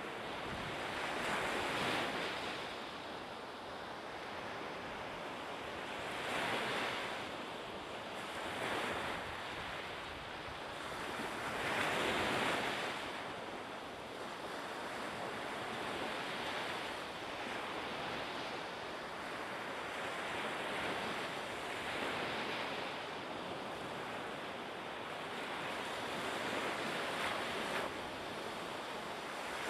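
Sea waves washing in, swelling every few seconds, with wind in the background.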